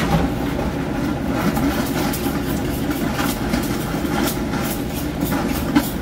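Water and air spitting irregularly from a garden hose into a floor drain as the running recirculation pump pushes trapped air out of the line, over a steady low mechanical hum. The sputtering flow is the sign that air is still in the recirc line.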